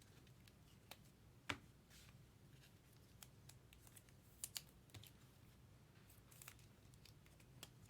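Faint, scattered clicks and flicks of trading cards being handled and flipped through, the loudest about a second and a half in, over a low steady room hum.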